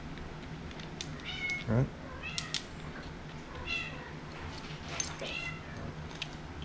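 A pet animal's short high-pitched calls, about four of them spaced a second or so apart, over a low steady hum.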